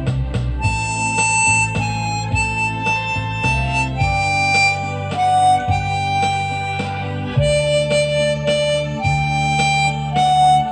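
Seydel Saxony chromatic harmonica playing a slow melody of long held notes over a lower accompaniment whose chords change every few seconds.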